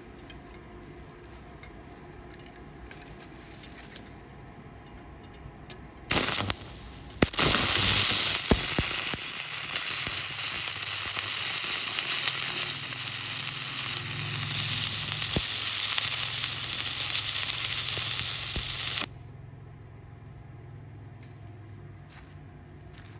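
Stick-welding arc on stainless steel, struck about six seconds in with a brief stutter. It then settles into a steady crackling sizzle for about twelve seconds, which cuts off suddenly when the arc is broken.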